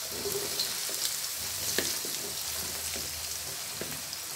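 Cubes of seasoned tempeh sizzling in hot oil in a wok as more cubes are tipped in: a steady hiss with scattered crackles and pops, one louder snap a little under two seconds in.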